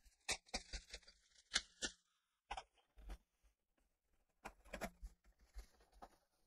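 Faint crinkling and crackling of plastic shrink-wrap and cardboard as a boxed plastic miniatures set is unwrapped and its lid lifted, in two bursts of handling with a short pause between.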